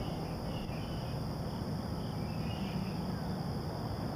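Insects chirping in short, irregular bursts over a steady low rumble.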